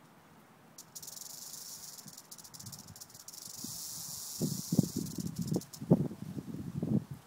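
Rattlesnake rattling its tail, a defensive warning: a steady high buzz that starts about a second in and fades after a few seconds. From about four seconds in it gives way to louder, irregular crunching thumps in dry grass and leaves.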